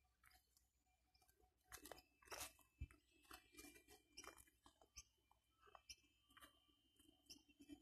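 Near silence, with faint irregular clicks and crackles about once or twice a second.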